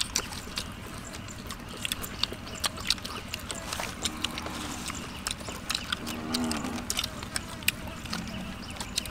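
Three short, low animal calls about four, six and eight seconds in, the middle one rising and falling in pitch, over frequent light clicks and taps.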